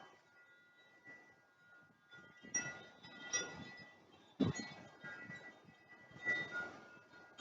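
Wind chimes ringing irregularly in gusty wind, with several clusters of strikes whose tones linger in between; the strongest comes about halfway through.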